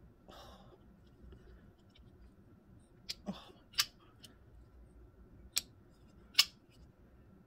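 Folding pocketknife being opened and closed in the hand: four short sharp clicks of the blade and lock, the first about three seconds in, with light handling rustle.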